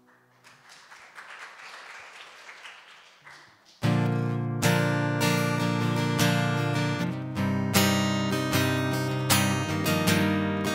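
Faint rustling noise, then about four seconds in an acoustic guitar starts strumming chords, loud and in a steady rhythm: the intro to the next worship song.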